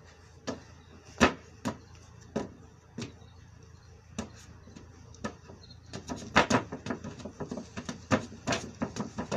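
Feet in sandals knocking on a wooden tabletop as a man climbs onto a collapsible wooden table and stamps on it to test its strength. Single sharp knocks come a second or so apart at first, the loudest about a second in. From about six seconds in, a quick irregular run of stamps follows.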